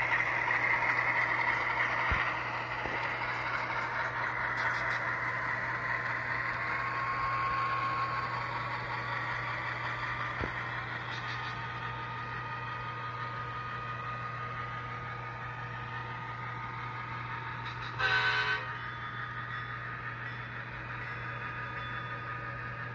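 SoundTraxx DCC sound decoder in an HO-scale BNSF diesel model locomotive playing diesel engine sound through its small speaker, with a steady low hum, growing fainter as the locomotive moves away. Late on, the decoder gives one short horn blast.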